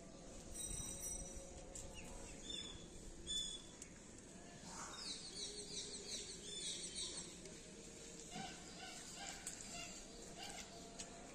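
Small birds chirping faintly outdoors, with a quick run of repeated falling high notes about five seconds in, over a low background hum.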